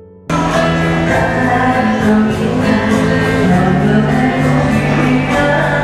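Soft electric-piano background music cut off a moment in by loud live singing from a vocal duo, with musical accompaniment and long held notes.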